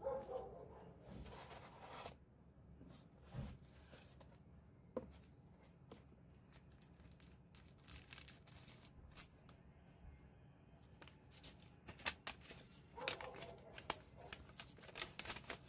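Light rustling and taps of watch packaging being handled, then the crackle of a folded paper instruction leaflet being unfolded in the last few seconds.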